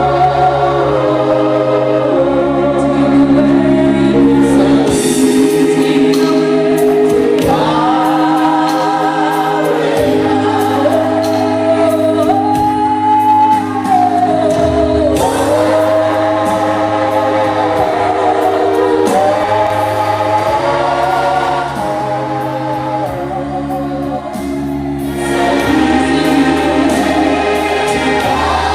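Gospel choir singing in harmony, with held chords over low sustained notes.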